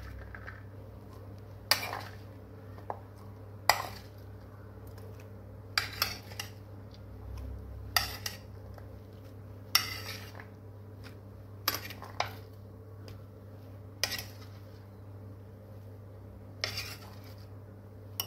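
Steel spoon clinking against bowls as chopped fruit is spooned into custard, a sharp clink about every two seconds, over a low steady hum.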